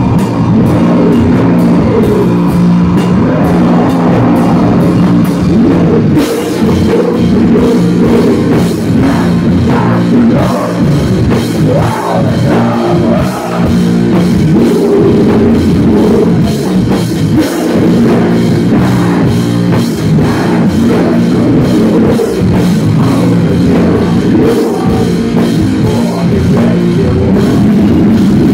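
A rock band playing live and very loud: electric guitars over a drum kit, with a cymbal crash about six seconds in and rapid cymbal strikes after it.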